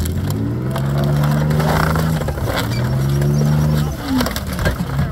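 Engine of a 17-ton tracked armoured vehicle revving hard in two long pulls, each rising in pitch, as it climbs over and crushes a car; the engine eases off about four seconds in. Clanking tracks and crunching sheet metal run underneath.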